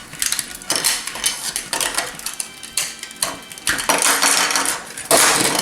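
Hard plastic parts of a Transformers G1 Jetfire toy clicking, rattling and clattering as they are handled and fitted together, with a louder clatter near the end.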